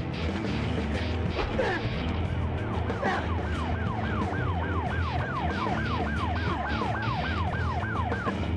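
Police car siren in its fast yelp mode, a falling sweep repeated about three times a second. It comes in with a few slower sweeps about a second and a half in and speeds up from about three seconds, over low background music.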